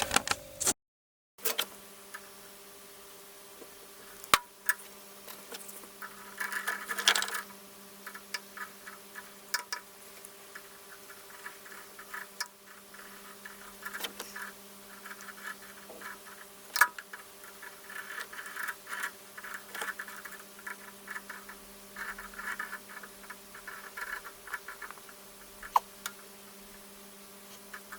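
Small clicks, taps and scratchy crackling from hand tools working solder on a circuit board, loudest around a quarter of the way in, over a steady electrical hum.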